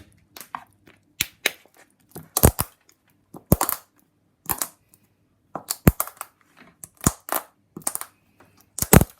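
Empty hazelnut shells being crushed, a quick irregular run of sharp cracks and snaps, about a dozen in all, the loudest near the end.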